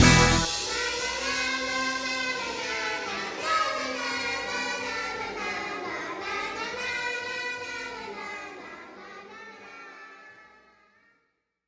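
Ending of a rock song: the full band stops sharply just as it begins, leaving a held, wavering chord that slowly fades out to silence near the end.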